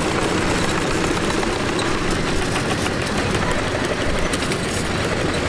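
Miniature steam road vehicles running past in a slow parade: a steady mechanical running and clatter with a few light clicks.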